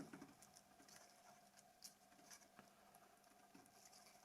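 Near silence broken by a few faint, scattered clicks and taps: small plastic parts of a Nokia 2760 flip phone being handled during disassembly.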